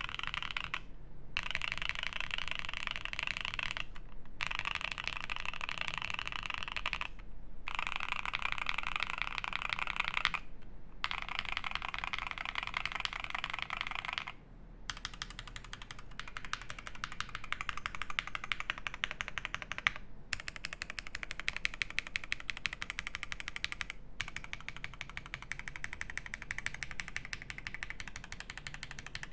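Fast typing on a Primus75 mechanical keyboard with lubed Alpaca linear switches on a polycarbonate plate, keystrokes running together into a dense clatter. It cuts to silence briefly four times in the first half. In the second half it gives way to a slightly quieter stream of closely spaced key clicks.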